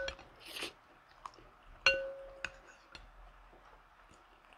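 White ceramic soup spoon clinking against a ceramic bowl during a meal: a few light clinks, each with a short ring, the sharpest about two seconds in.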